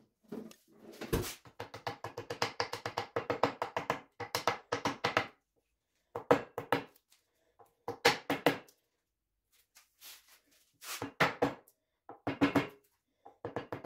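A small mallet tapping the pins through a knife's freshly epoxied handle scales. A quick run of light taps, several a second, lasts about five seconds, then comes in short bursts of taps with pauses between them.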